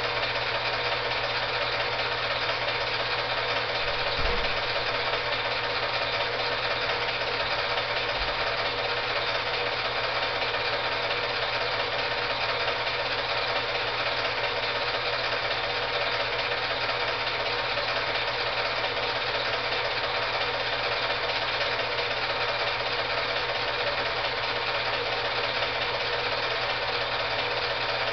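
Film projector running steadily: a constant mechanical whir with hiss and a low hum, the soundtrack of silent home-movie film transferred by projection. A faint low thump about four seconds in.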